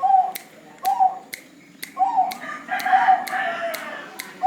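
Zebra dove (perkutut) cooing: a series of about five short coo notes, with sharp clicks scattered between them.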